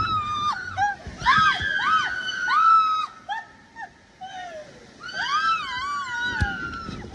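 Riders screaming on a raft water slide: a run of short rising-and-falling shrieks and a couple of longer held cries, with several voices overlapping, over a low rushing noise of the ride; it eases briefly about midway, then the screams start again.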